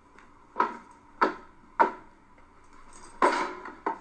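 A series of five sharp knocks or bangs: three evenly spaced about half a second apart, then two more close together near the end, the first of those ringing on a little longer.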